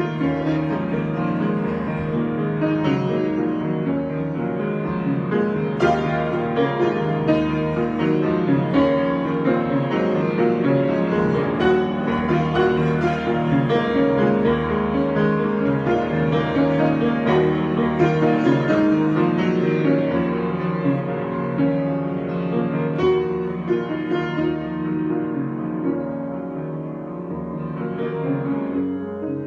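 Solo piano improvising, with dense sustained chords and a moving melody over them.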